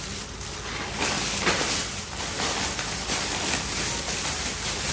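Plastic bags rustling and crinkling as they are handled, with a few sharper crinkles between about one and two seconds in.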